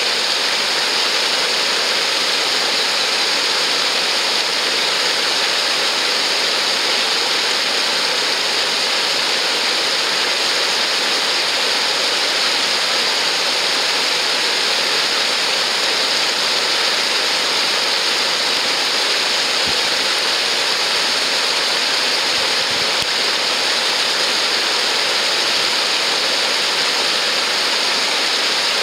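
River water spilling over a low weir, a steady rushing and splashing that never lets up.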